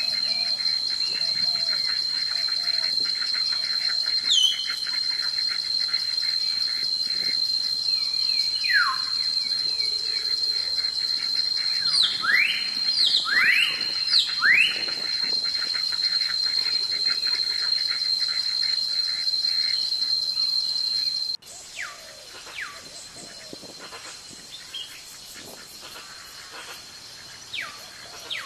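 Insects trilling in a steady, high, pulsing drone, with birds calling in sweeping whistles: falling calls early on and three quick rising whistles around the middle. About three-quarters of the way through, the insect trill cuts off suddenly, leaving a quieter background with scattered bird calls.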